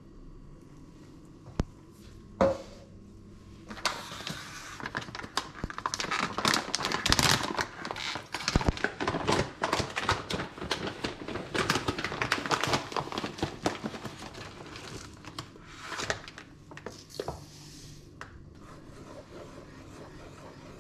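A packet of oats crinkling and crackling as it is opened and handled over the pan, a dense run of crackles lasting about ten seconds, with a few more crinkles later.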